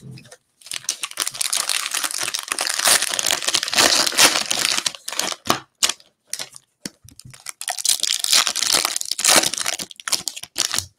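A trading-card cello pack's shiny plastic-foil wrapper being crinkled and torn open by hand. It crackles almost without a break for several seconds, thins to scattered crackles around the middle, then crinkles and tears again.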